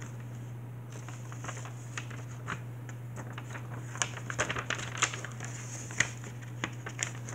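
A sheet of paper being handled and folded, crinkling and rustling in short crackles that come thicker and louder around the middle and near the end, over a steady low hum.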